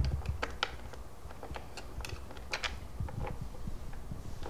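Scattered light clicks and taps of small bolts, washers and nuts being handled and fitted through the holes of a trunk box and metal rear rack.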